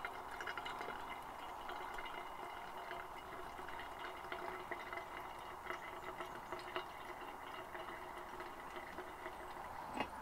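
Hot water poured in a thin stream from a kettle onto ground coffee in a pour-over filter, a steady trickle with small splashes and drips as it soaks through the grounds. A single soft knock near the end.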